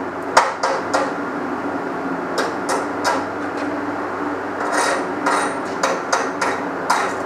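Chipping hammer tapping slag off a fresh 6013 stick-weld bead on scrap steel: a dozen or so sharp metal taps in small irregular clusters over a steady hum. The slag from this Lincoln 6013 rod is thick and doesn't come up easily.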